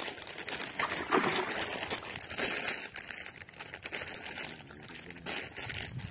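A large hooked catla thrashing and splashing at the water's surface in repeated bursts. The splashes are loudest about a second in and again around two and a half seconds, with another near the end.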